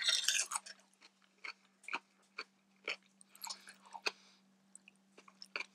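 A person chewing food close to the microphone: scattered short wet mouth clicks and smacks, with a denser cluster just at the start. Light clicks of a knife and fork on a glass plate are mixed in.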